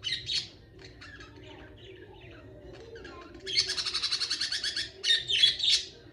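Pet budgerigars chirping and chattering. About three and a half seconds in comes a fast, even trill lasting just over a second, followed by loud, sharp chirps.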